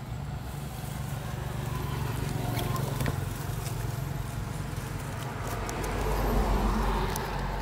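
Outdoor ambience: a steady low rumble that swells about six seconds in and then eases, with scattered faint clicks.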